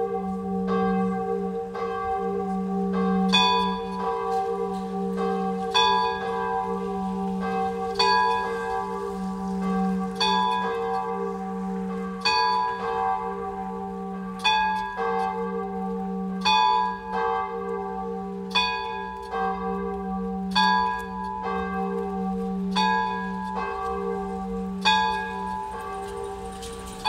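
Church bells ringing: bells struck over and over, roughly once a second, each strike ringing on over a steady low hum of the bells still sounding.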